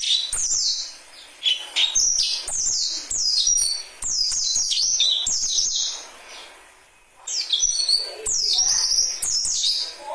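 A young dakun songbird singing a rapid string of sharp, downslurred whistled notes, with a short lull about six seconds in before the notes resume.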